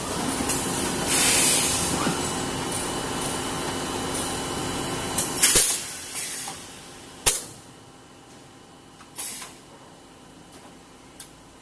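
HDPE bottle blow molding machine cycling: short hissing blasts of compressed air from its pneumatic cylinders and valves, with a few sharp clacks, over a steady machine hum that drops away about halfway through.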